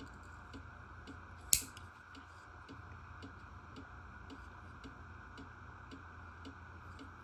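Faint, even ticking, about two ticks a second, over a low steady hum, with one sharp click about one and a half seconds in.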